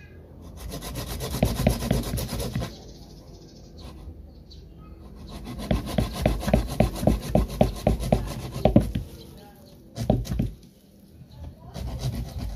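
A small hand blade sawn back and forth through the woody trunk of a Desmodium (saeng simbur) bonsai stock, cutting the stem down. The rapid scraping strokes come in two bouts of about three to four a second, with a pause between them and a few single strokes near the end.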